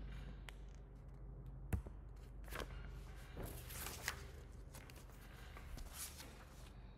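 Faint room noise: a steady low hum with scattered small clicks and rustles, and one sharper click a little under two seconds in.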